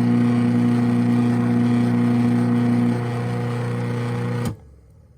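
Craftsman half-horsepower chain-drive garage door opener running as it raises the door, a steady motor hum. The hum drops in level about three seconds in, then cuts off sharply with a click about four and a half seconds in as the door finishes opening.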